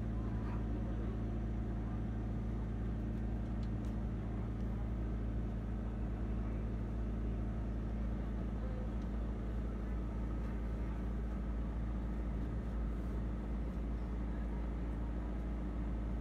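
Steady low cabin hum inside an Airbus A350-900 taxiing after landing, its engines at idle.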